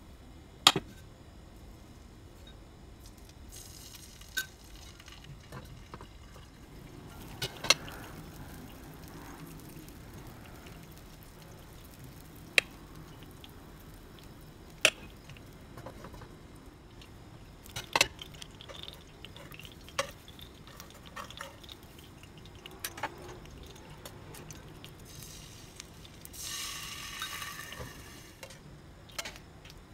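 Scattered sharp clicks and clinks of kitchen utensils knocking against a nonstick frying pan, a glass bowl and a glass pot lid as soufflé pancake batter is spooned into the pan. About two seconds of hiss comes near the end.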